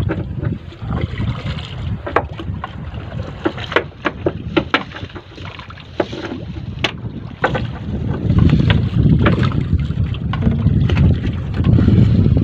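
Wind buffeting the microphone, with water splashing and scattered sharp knocks as a wet fishing net is hauled over the side into an outrigger boat. The wind rumble grows louder about eight seconds in.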